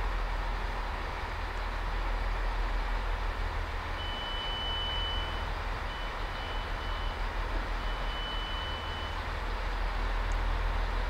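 A steady low rumble, with a high electronic warning beep that starts about four seconds in and sounds for about five seconds, steady at first, then broken into short beeps, then steady again.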